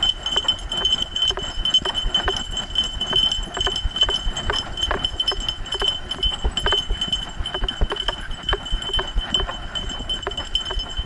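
A dog running along a leaf-covered trail, heard from an action camera harnessed to its back: a quick, uneven run of footfalls and jostling thumps and clicks, over a constant high-pitched whine.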